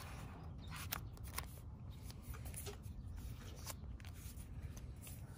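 Handling noise of an Apple Magic Trackpad 2 and its paperboard box: light clicks, taps and scrapes as the trackpad is slid back into the box, a few sharp ticks scattered through, over a low steady rumble.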